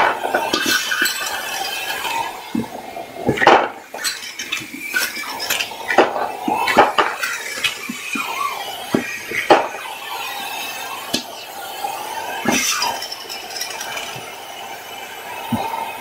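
Vacuum cleaner running while batteries are sucked up through its metal wand and hose. They clink and rattle in sharp, irregular clicks against the steady motor noise.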